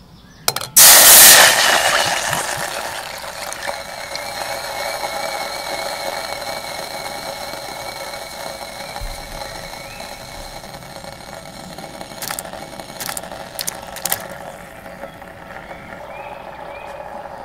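Red wine hitting a hot saucepan: a loud hiss about a second in that dies down over a few seconds into a steady sizzling simmer. A few sharp clicks and knocks come later.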